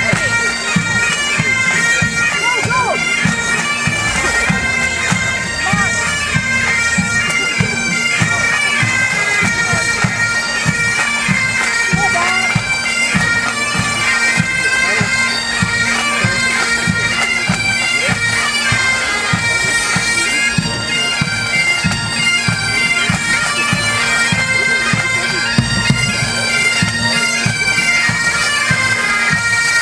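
Pipe band playing: Highland bagpipes sounding a tune over their steady drone, with the drums keeping a regular beat underneath.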